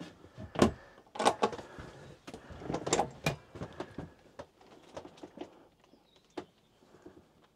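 Motorhome storage compartments being handled: an irregular run of clicks and knocks as cabinet flaps and drawers are opened and closed, busiest in the first few seconds and sparser toward the end.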